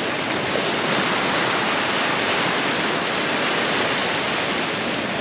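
Ocean surf breaking and washing over a rock shelf: a steady rush of water.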